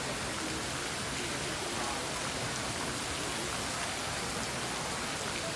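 Jets of water falling from a ceiling-mounted fountain into a round pool, splashing steadily and evenly.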